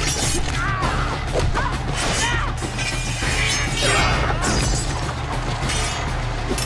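Sword-fight film soundtrack: music playing under a quick run of sharp metal clashes and blows from rapiers and struck bodies.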